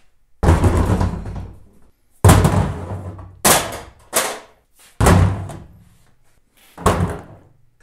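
Six heavy thuds at uneven intervals, each dying away over about a second: a car battery and a battery load tester being set down on a steel table top.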